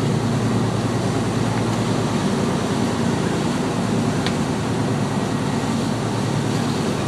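Fishing boat's engine running steadily underway, a constant low drone mixed with wind and sea noise.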